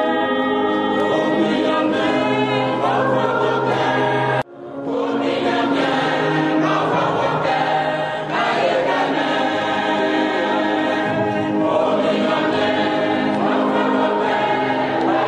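Choir of many voices singing a hymn in held, sustained notes. About four seconds in the sound cuts out abruptly and fades back up.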